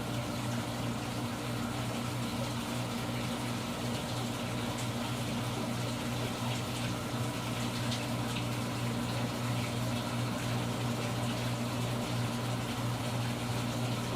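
Steady low hum of a running motor or appliance, even in level throughout, with a few faint light ticks.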